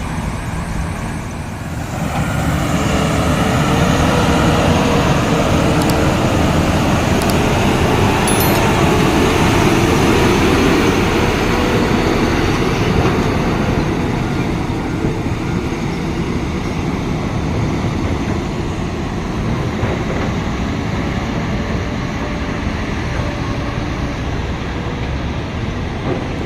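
Heavy diesel engine running steadily under load, building up about two seconds in and easing off a little after the middle.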